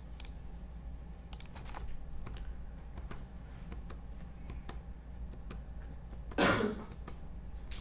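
Irregular clicks of computer keys, a few a second, as a chess game is stepped through move by move on the computer, over a low steady hum. About six and a half seconds in comes a short, loud burst of a person's voice.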